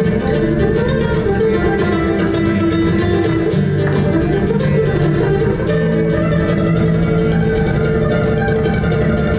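Nylon-string guitar playing flamenco-style music live, a steady dense flow of plucked and strummed notes over sustained bass notes.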